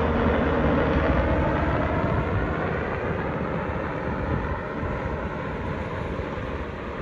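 Sikorsky S-92 coastguard helicopter flying away: steady rotor and turbine noise fading gradually, its pitch sliding slowly down as it goes.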